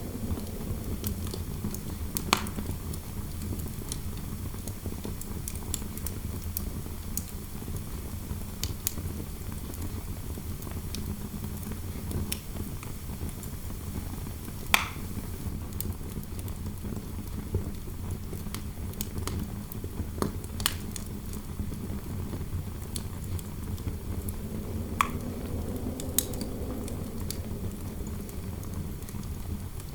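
Fireplace fire crackling, with scattered sharp pops over a low steady rumble, and interior wind howling, rising and falling in pitch and swelling again near the end.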